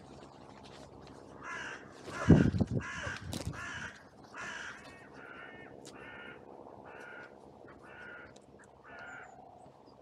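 Carrion crow cawing over and over, about a dozen caws in a row, the first few louder and the rest fainter. A loud, deep thump and rustle close to the microphone a couple of seconds in.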